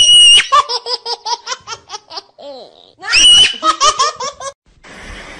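High-pitched laughter: a short squeal, then rapid repeated bursts, in two bouts.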